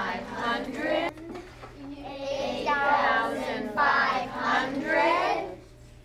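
A class of children counting aloud in unison by 500s, each number drawn out in a sing-song chant ("fifteen hundred"). Two long chanted numbers.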